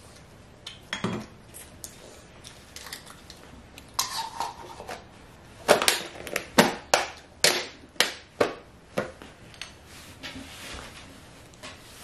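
A clear plastic lid knocked against a bowl by a toddler: light taps, then a run of sharp clacks about two a second in the middle, the first the loudest.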